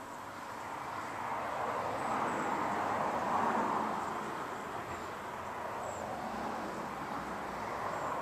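A vehicle passing: a rushing noise that swells over the first few seconds and then eases off, building a little again near the end. A few faint, short, high chirps sound over it.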